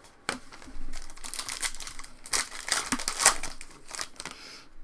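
Crinkling and rustling of trading-card packaging as it is handled, in a run of crackles that is loudest in the middle.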